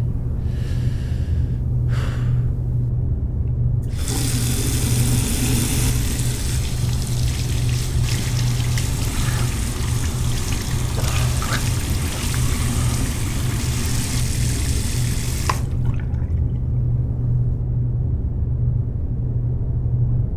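Water running steadily for about twelve seconds, then stopping suddenly, over a low steady hum.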